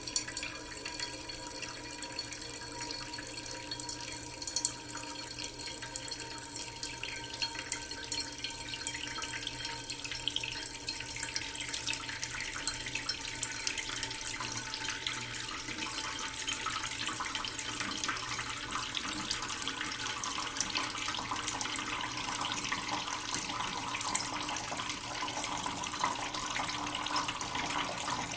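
Kitchen tap running slowly into a cooking pot in a sink, the pot filling with water. The splashing grows gradually brighter and a little louder over the second half.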